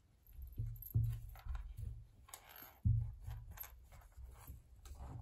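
Dull thumps with light clicks and scratching as a cat paws under and against a closed door, the loudest thump about three seconds in.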